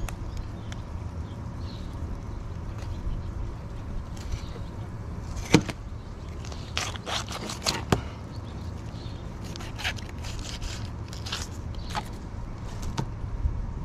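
Fillet knife slicing a redfish fillet off the frame, with a string of sharp scrapes and crackles from about five seconds in as the blade runs along the rib bones and scaled skin. A steady low rumble runs underneath.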